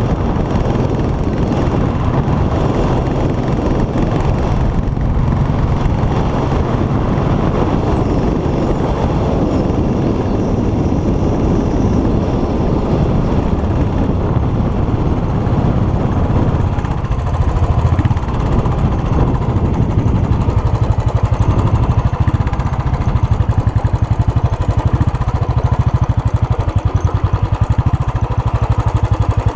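Royal Enfield single-cylinder engine running through its stock BS3 exhaust while the motorcycle is ridden, with wind and road noise. In the second half the separate exhaust pulses stand out more clearly.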